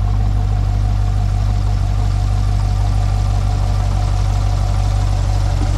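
2020 Chevrolet Corvette C8 Stingray's 6.2-litre LT2 V8 idling steadily, with no revving. It is running after a salvage rebuild, and the owner takes the sound as a good sign.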